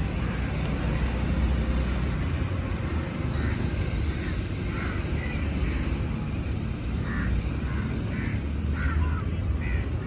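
Steady low rumble of city traffic, with short bird calls repeating several times from about three seconds in.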